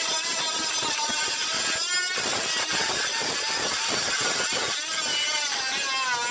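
Dremel rotary tool grinding metal, elongating drilled bolt holes into slots. It makes a high whine that wavers in pitch, dipping about two seconds in and again near the end.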